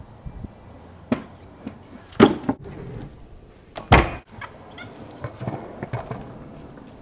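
Freestyle kick scooter on a concrete driveway: its wheels roll and its deck and wheels hit the ground in several hard clacks. Loud ones come just after two seconds and just before four seconds, with lighter knocks after.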